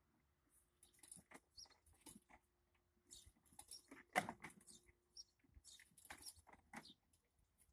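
Faint, irregular squeaks and clicks of playground swing chains and hangers as the swings move, with one louder knock about four seconds in.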